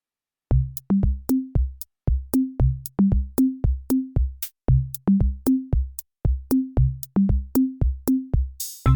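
Electronic background music: a drum-machine beat of deep, pitched kick hits, about three a second, starting about half a second in, with a short whooshing hiss near the end leading into a fuller section.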